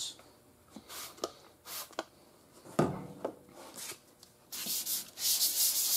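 A few light knocks and handling sounds, then about four and a half seconds in, sandpaper rubbing by hand on the wet primed car panel starts: a steady rasping in rhythmic strokes as the primer is wet sanded.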